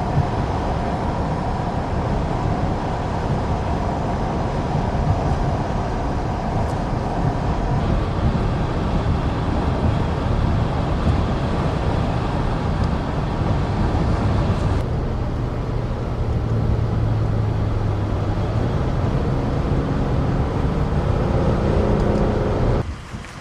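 Road and engine noise of a moving car heard from inside, a steady rumble with hiss. About two-thirds of the way through the hiss drops suddenly and a steady low engine hum comes up.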